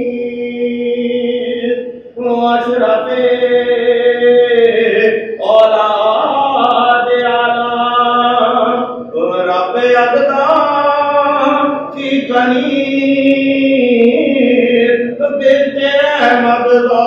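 Unaccompanied chanting of an Urdu devotional lament at a Shia majlis, sung in long, held melodic phrases that break briefly every three to four seconds.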